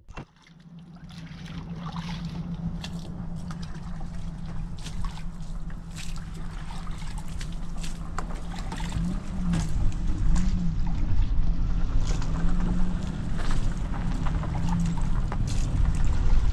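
Water sloshing and splashing in a plastic bucket as hands scoop and work in it, with many short splashy clicks. A steady low hum runs underneath, its pitch wobbling briefly about nine to ten seconds in.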